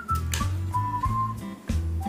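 Background music: a whistled tune stepping between notes over a pulsing bass beat.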